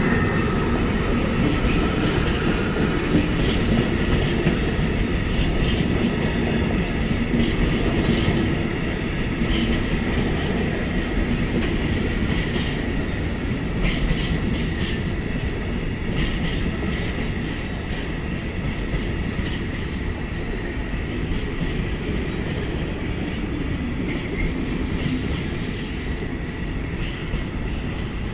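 Freight wagons of a coal-dust train rolling through, their wheels clacking over rail joints under a steady heavy rumble, with a thin steady squeal from the wheels.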